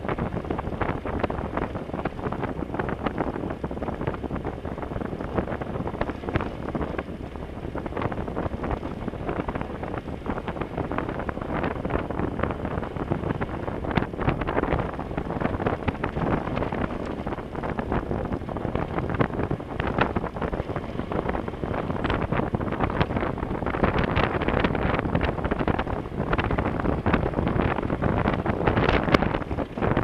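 Wind buffeting the camera's microphone on a moving motorcycle, over the engine and the tyres on a gravel road. Many short crackles and pops run through it, growing busier in the second half.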